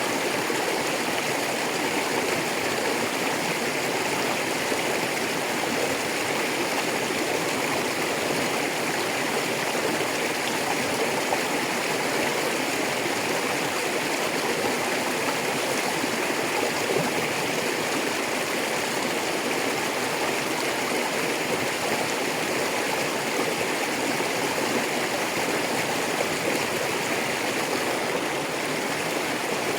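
Rocky river flowing over stones: a steady, continuous rushing and burbling of water.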